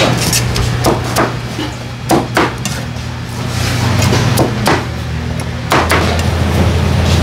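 A cleaver chopping through peeled pineapple onto a plastic cutting board: about nine sharp knocks at irregular intervals, with a steady low hum underneath.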